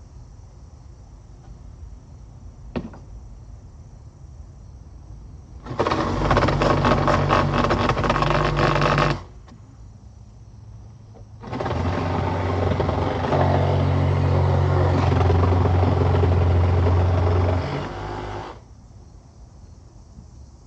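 BAUER 20V cordless reciprocating saw running in two bursts, the first about three and a half seconds long and the second about seven, each with a steady low hum under a buzzing rattle. A single click sounds about three seconds in.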